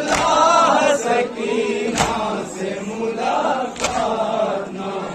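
Group of men chanting a noha lament together, with a loud collective chest-beat (matam) landing three times, about two seconds apart.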